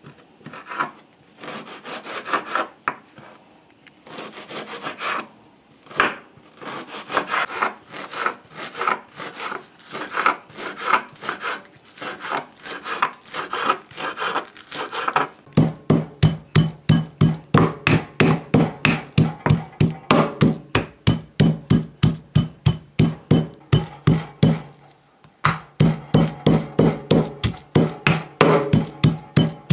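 A kitchen knife chopping onion and scallion on a wooden cutting board, with quick, irregular taps and scrapes. About halfway through it changes to a stone pestle pounding garlic and red hot pepper in a granite mortar, about three and a half strokes a second, with a short break near the end.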